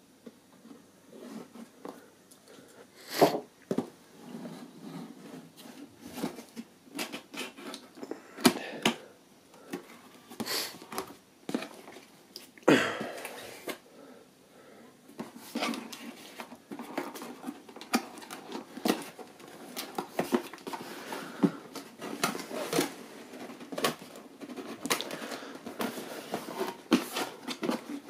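Cardboard packaging being handled and opened: box flaps lifted and an inner cardboard box slid and lifted out, with irregular rustles, scrapes and light knocks. Sharper knocks stand out about 3, 8 and 13 seconds in.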